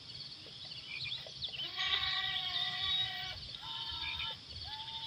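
Electric motors of a YIGONG YQ258C RC excavator whining in steady pitched bursts as the arm and bucket work. One long whine starts about two seconds in, a shorter higher one follows, and another begins near the end. Birds chirp faintly in the background.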